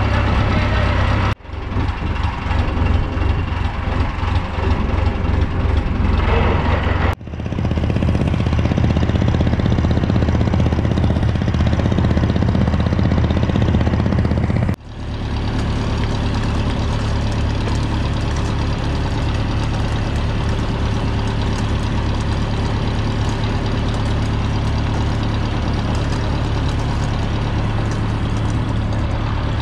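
A fishing boat's engine running steadily, a low drone with rushing wind and water noise over it. The sound breaks off and picks up again three times, in the first half.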